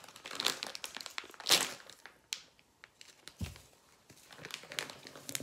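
A bag of dry cake mix crinkling and rustling as it is handled over a mixing bowl, in several short bursts, with a soft low thump about three and a half seconds in.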